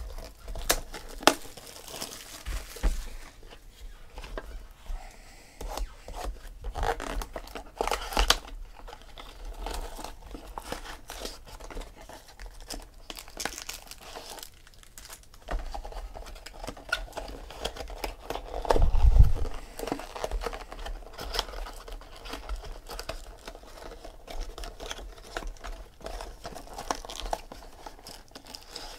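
A Bowman's Best trading-card box and its packaging being torn open and crinkled by hand, an irregular run of ripping and crinkling. A single dull thump comes about two-thirds of the way through.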